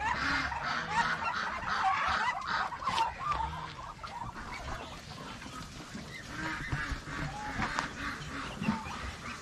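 A farmyard flock of ducks and turkeys calling, many short overlapping calls at once, busiest in the first few seconds and thinning out later, as the birds crowd round to be fed.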